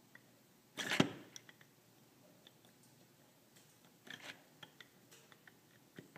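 Light metallic clicks and scrapes as a connecting rod is rocked by hand inside a small engine's crankcase to feel the crank's play. There is a louder rustle and knock about a second in and another cluster of clicks around four seconds in.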